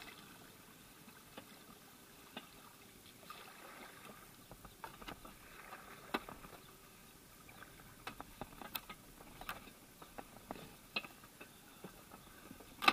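Kayak paddle strokes in the water: soft swishes and drips with a few light clicks, ending in one sharp knock at the very end.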